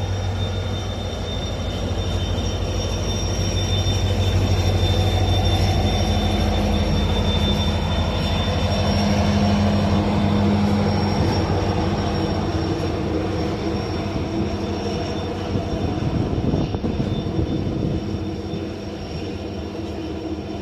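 Steady low hum of a train standing at a station, with a thin high whine and the rush of strong wind over it. The sound swells for several seconds midway and then settles back.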